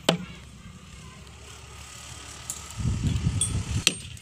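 A sharp knock from work on a plinth beam's rebar cage and formwork, then a low steady hum. About three seconds in there is a louder low rumbling noise lasting about a second, and another sharp knock near the end.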